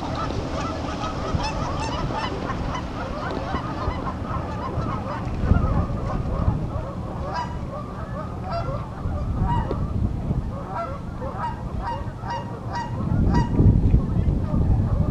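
A large flock of migrating geese honking, many birds calling over one another in a continuous chorus, with a low rumble underneath.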